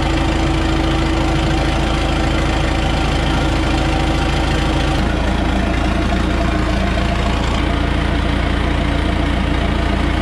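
John Deere 450C crawler dozer's diesel engine running steadily at idle, its note shifting slightly about halfway through and again near the end, while a dozer that would not move is tested in gear.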